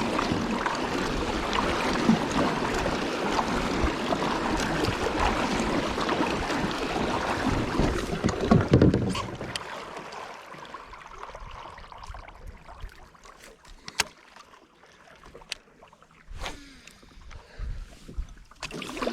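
Water and wind noise around a kayak on a lake, steady and fairly loud for about nine seconds, then dropping away. In the quieter second half there are a few sharp clicks and knocks.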